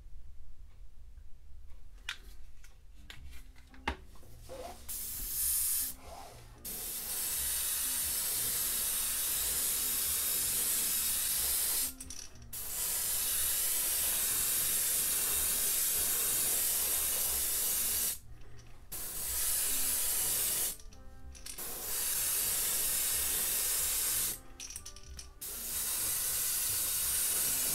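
Badger airbrush spraying paint: hissing compressed air in five long stretches with short breaks between them, the first starting about five seconds in, after a few seconds of quiet handling as the paint is poured into the cup.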